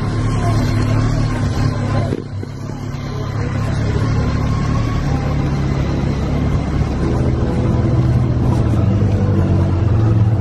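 A loud, steady low machine hum with a noisy haze over it; it dips briefly about two seconds in, then rises back and holds.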